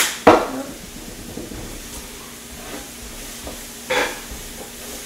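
Sliced bell peppers and red onions frying in oil on an electric griddle, a steady sizzle. Two sharp knocks come right at the start, and a wooden spatula scrapes the vegetables across the griddle about four seconds in.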